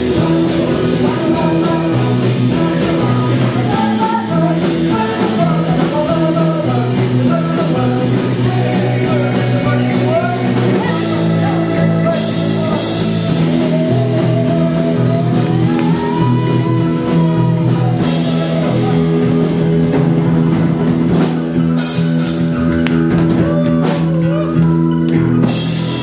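Rock band playing a song with a sung melody over guitar, drum kit and bass.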